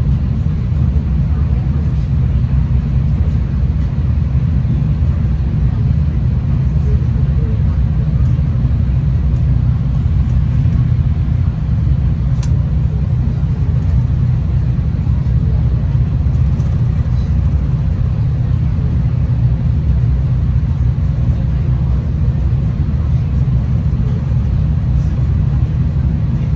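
V/Line passenger train running along the track, heard as a steady low rumble of the moving carriage, with a faint click about halfway through.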